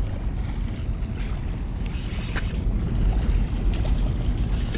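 Wind buffeting the microphone as a steady low rumble, over small waves lapping at a rocky shore, with a sharp knock or splash about two and a half seconds in.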